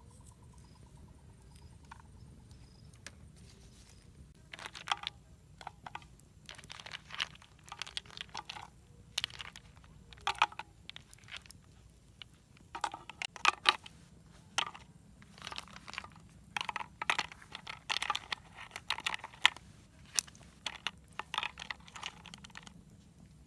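Irregular crunching and rustling handling noise: clusters of short, sharp crackles starting about four and a half seconds in and going on until near the end.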